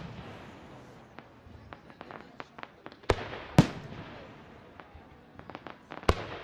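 Aerial fireworks shells bursting. Two sharp booms about half a second apart come around three seconds in, and another comes near the end, with scattered smaller pops and crackles between them.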